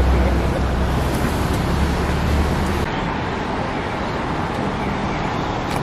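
Road traffic noise: a steady wash of cars passing on a city street. For the first three seconds a heavy low rumble sits under it, which cuts off abruptly.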